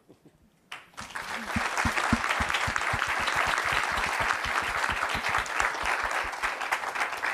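Audience applause: many people clapping, starting about a second in and tapering off near the end.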